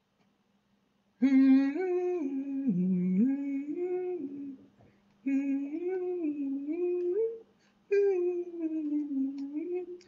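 A man humming a wandering tune to himself in three phrases of a few seconds each, with short pauses between; the first starts about a second in.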